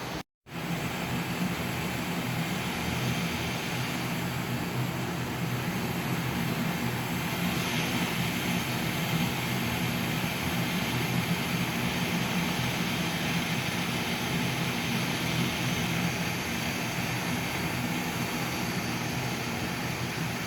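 A motor-driven machine running steadily, with a low hum under an airy hiss. It starts right after a brief gap near the start and holds steady throughout.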